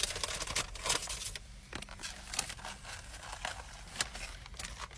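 Paper shaker-fries bag rustling and crinkling in scattered short bursts as it is handled and opened.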